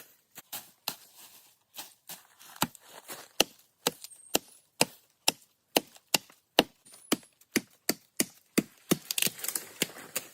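Wood being chopped with a hand tool: a few lighter irregular taps, then steady sharp blows about twice a second, ending in a quick flurry of lighter knocks.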